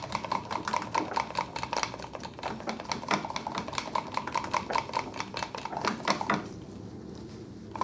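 Rapid tapping, several taps a second, as the polishing pad loaded with metal polish is dabbed over and over onto the metal table saw top to spread the product. It stops about six and a half seconds in.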